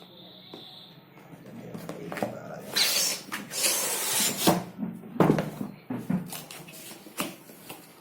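Cardboard packaging being handled and opened: about a second and a half of loud rustling and sliding, then several sharp knocks as the box and its contents are moved.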